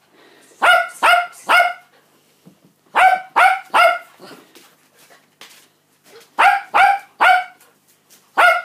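An adult dog, the puppies' mother, barking in bursts of three or four sharp barks with short pauses between them, about ten barks in all.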